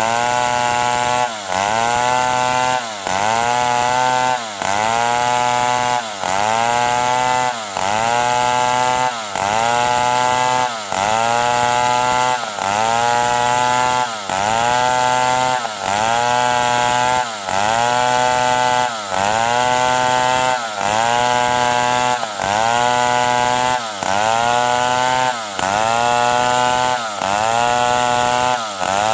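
Stihl 070 two-stroke chainsaw running at high revs, its pitch and loudness dipping briefly and recovering about every second and a half in a steady, repeating cycle.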